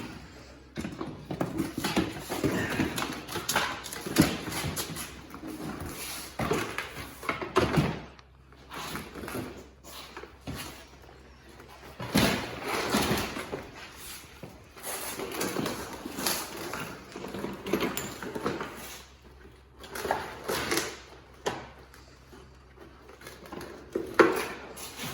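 Irregular knocks, clatter and rustling from a Fox-body Mustang's front bumper cover being handled and pushed into place, in bursts with short pauses.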